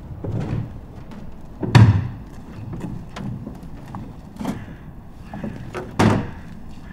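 A series of knocks and thuds, with two heavy bangs, one about two seconds in and one near the end.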